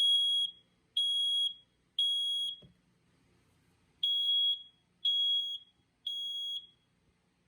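BRK 2002RAC smoke alarm sounding on its test button: a steady, high-pitched beep in the temporal-3 pattern, three half-second beeps about a second apart, a pause, then three more. A faint knock comes between the two groups.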